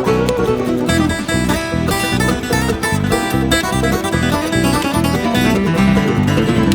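Background music: a bluegrass-style tune with banjo and guitar picking over a steady beat.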